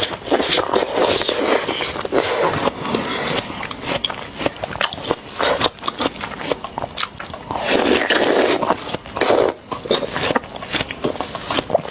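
A person biting into and chewing watermelon: a dense run of short crisp crunches and clicks.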